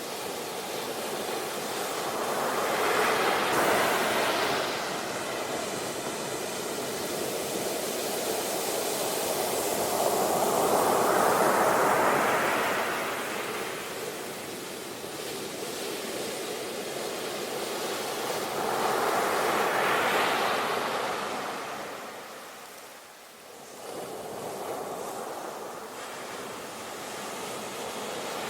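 Sea waves breaking and washing on the shore, the surf swelling up three times, a few seconds each, between quieter stretches, with a short lull about three-quarters of the way through.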